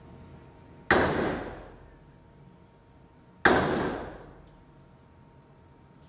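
Two handgun shots about two and a half seconds apart, each a sharp crack followed by a long echoing decay.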